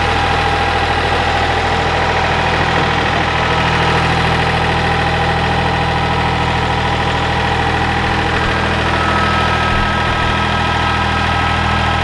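Ford 1710 compact tractor's diesel engine running steadily at idle. A faint high whine joins about nine seconds in.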